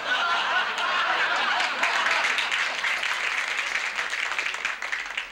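Studio audience applauding and laughing. The sound dies down near the end.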